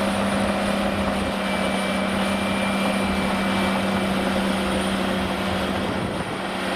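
Caterpillar D6R crawler bulldozer's diesel engine running steadily at a constant pitch as the dozer pushes sand with its blade.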